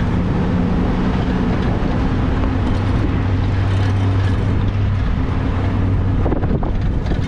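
Pickup truck engine running while driving, a steady low drone with road noise, its low note shifting about three seconds in.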